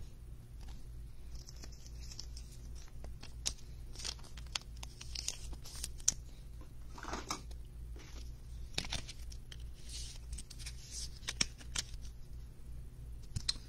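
Trading card being slid into a clear plastic sleeve and holder by hand: soft plastic rustling and scraping with scattered small clicks, over a faint steady low hum.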